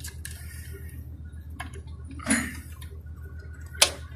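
Small metallic clicks of a safety pin being pushed into the plastic bracket cover of a Jotron EPIRB, with one sharp click near the end as the pin seats. A steady, evenly pulsing low hum runs underneath.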